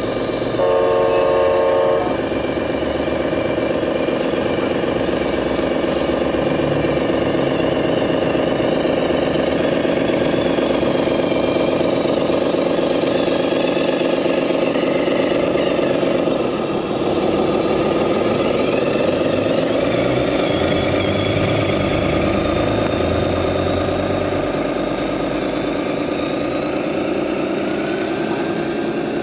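Scale RC 6x6 dump truck's electronic sound unit playing a steady diesel-truck engine sound, with a short horn blast about a second in. The engine pitch dips about halfway through, then climbs back up as the truck drives on.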